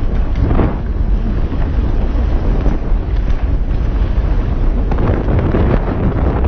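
Wind buffeting a helmet-mounted action camera's microphone along with the rumble of a mountain bike rolling fast over a dirt trail. The noise is loud and steady.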